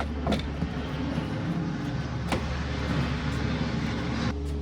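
A couple of sharp clicks from a plastic trim cover being pried loose, over a steady low hum and a rushing noise that cuts off suddenly near the end.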